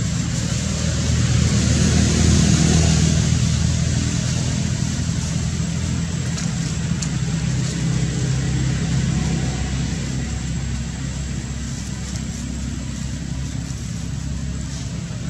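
Low, steady engine hum of a motor vehicle, growing louder over the first two seconds or so and then slowly fading.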